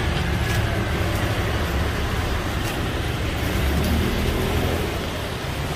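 Street traffic noise: a steady low rumble of passing road vehicles.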